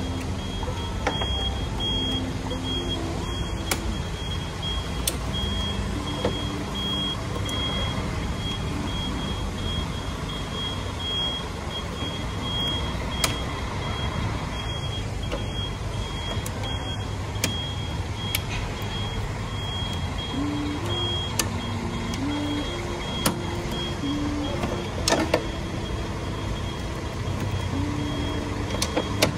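Renault Fluence 1.6 16-valve petrol engine running steadily at idle on its repaired Valeo V40 ECU. A high electronic tone keeps breaking off and coming back over the engine.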